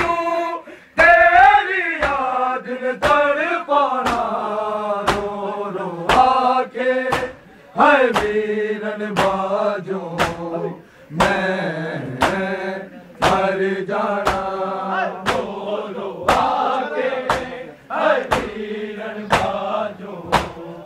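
Men's voices chanting a Punjabi noha (Shia lament) in unison, with the crowd beating their chests in time (matam), a slap about every 0.6 seconds.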